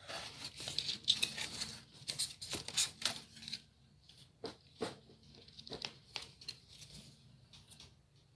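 A blue foam wall piece being pulled away from where it was hot-glued in a foam maze: a scraping, tearing rustle for a few seconds, then scattered light clicks and taps as the foam pieces are handled.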